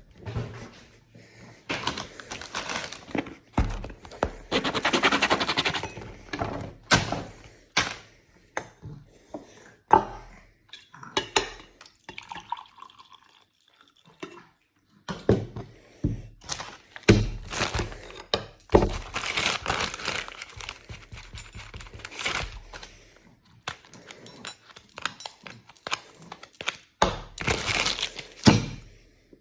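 A run of household clatter: knocks, thumps and dishes, pots and cutlery banging, with longer spells of rattling and crinkling noise.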